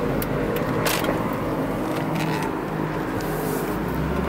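Mercedes-Benz S63 AMG's 6.2-litre V8 heard from inside the cabin, running steadily under road noise, then its note starting to climb near the end as the car is put under hard acceleration.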